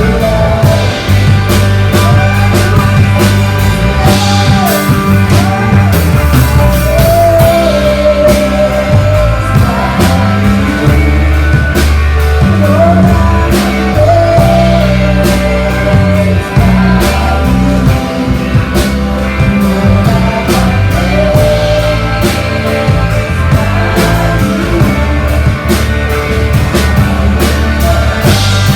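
Loud amplified band music, with regular drum hits and heavy bass under a sung melody: a worship song played live.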